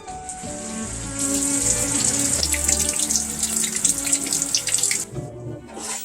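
Water running in a strong stream, starting at once and stopping about five seconds in, over quiet background music.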